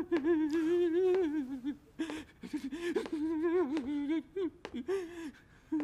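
A person humming a wordless tune in several short phrases, the pitch wavering up and down, with brief pauses between phrases.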